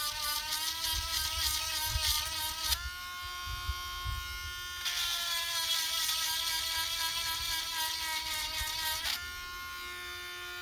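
Cheap cordless Dremel-type rotary multitool whining steadily as its grinding bit sharpens chainsaw chain cutters. The grinding hiss runs for about the first three seconds, stops while the motor runs free for about two seconds, grinds again for about four seconds, then the tool runs free near the end.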